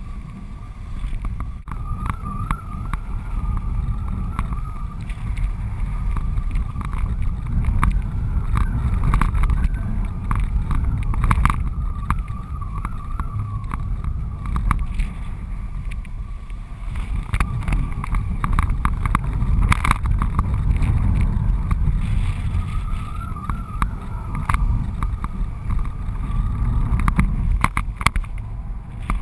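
Wind rushing over a GoPro camera on a flying kite's strut: a steady low rumble, with a wavering thin whistle that comes and goes and scattered sharp clicks.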